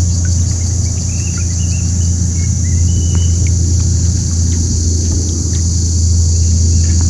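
A steady low hum under a continuous high insect buzz, with a few short bird chirps in the first few seconds.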